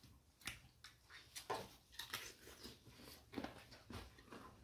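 Faint, scattered clicks and taps of people eating rice by hand from plates, with quiet chewing.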